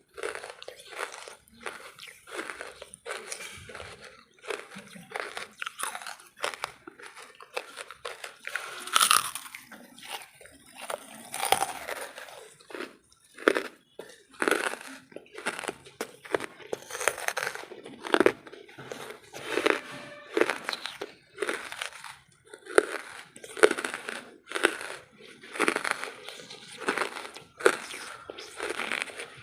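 Lumps of wood charcoal being bitten and chewed close to the microphone: a continuous run of crunches with louder bites every second or two.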